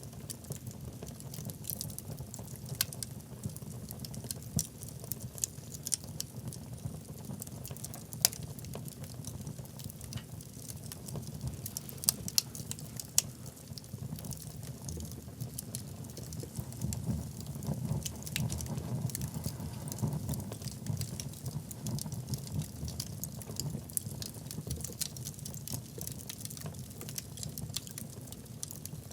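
Wood fire burning in a fireplace: a steady low rumble of flame with frequent small crackles and snaps at irregular intervals, a few of them sharper pops.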